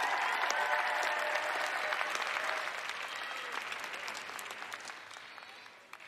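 Arena crowd applauding after a skater is announced, dense clapping with a few cheers, loudest at the start and dying away.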